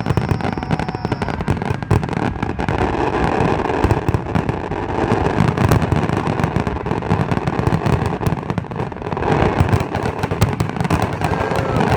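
Fireworks going off in quick succession: a dense, continuous crackle of pops and small bangs over a low rumble.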